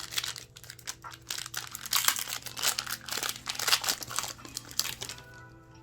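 Foil booster pack wrapper crinkling and tearing as it is ripped open by hand, a dense run of crackles that dies down near the end.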